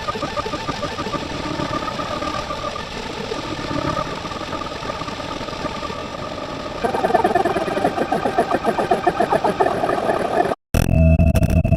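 Engine-like running sound effect. About seven seconds in it turns louder and pulses rapidly. Near the end there is a brief cut to silence, then a different sound with steady ringing tones.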